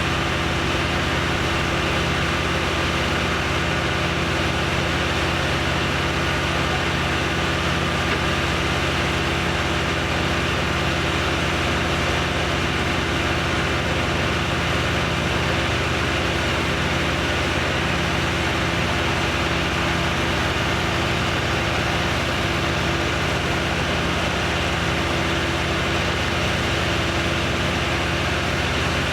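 An engine idling steadily with an unchanging drone, never revving.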